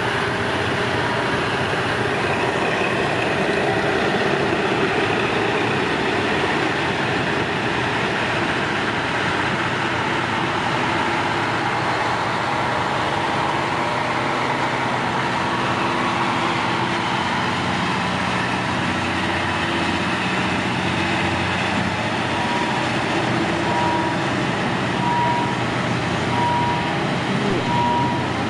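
A heavy engine running steadily under a wash of vehicle noise. About six seconds before the end a high electronic beep starts, repeating about once a second.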